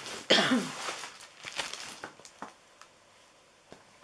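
Plastic packaging of a polyester tulle curtain rustling and crinkling in small, scattered bursts as it is handled and opened, dying away to near quiet about two and a half seconds in. A brief vocal sound from the person comes just before the rustling begins.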